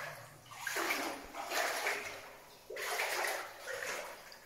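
Water splashing and sloshing in three surges about a second apart, stirred up by someone moving through a flooded mine level.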